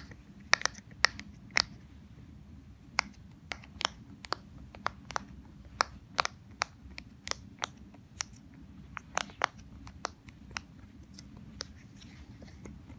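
Bubbles of a silicone pop-it fidget toy being pressed one after another, a sharp pop at each, at an uneven pace of about two a second that thins out near the end.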